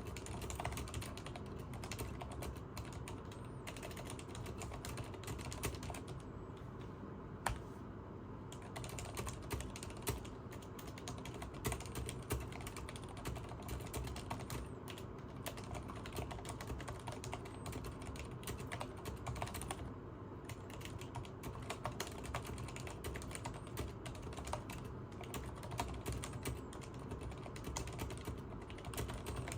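Continuous typing on a Leopold FC980MS mechanical keyboard with Cherry MX Silent Red switches: a dense run of soft, damped key presses with an occasional louder keystroke.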